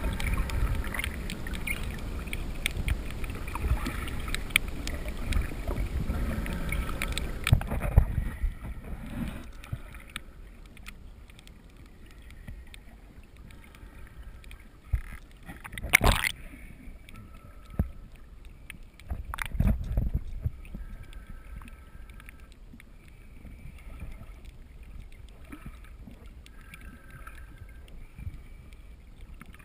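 Muffled underwater noise picked up by a GoPro in its waterproof housing: a low rush of moving water for the first several seconds, then a quieter hush broken by a few sharp knocks around the middle.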